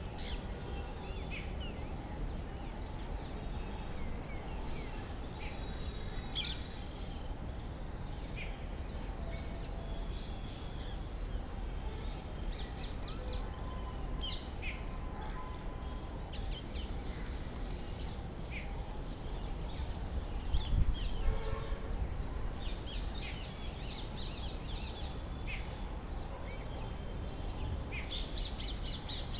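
Outdoor garden ambience: scattered bird chirps and calls over a steady low background rumble. About two-thirds of the way in there is a louder stretch, a low rumble with a short run of repeated notes.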